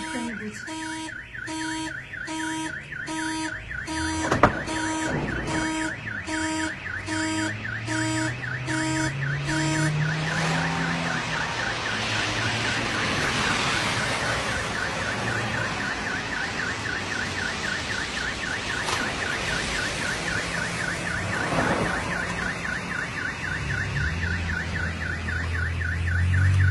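Car alarm going off: a horn-like tone pulses about twice a second for the first ten seconds over a fast warbling siren that keeps going throughout. A car engine revs up briefly about seven seconds in, and again near the end.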